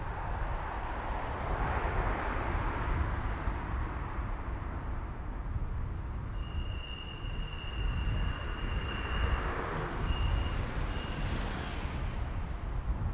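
Street sound from a moving bicycle: a steady low wind rumble with tyre and traffic hiss, swelling as cars pass about two seconds in and again around nine to ten seconds. From about six seconds in, a thin high squeal of several steady tones runs for about six seconds and then stops.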